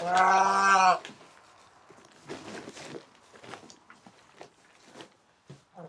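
Young calf mooing once, a steady, even-pitched call about a second long, followed by faint shuffling.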